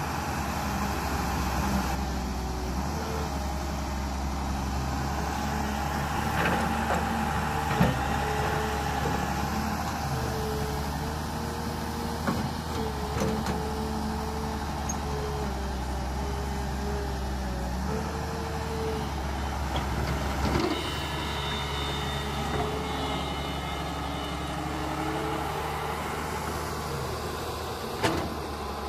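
Radio-controlled model excavator at work: its motors whine at several shifting pitches as the boom and bucket dig, over a steady low hum, with a few sharp clunks.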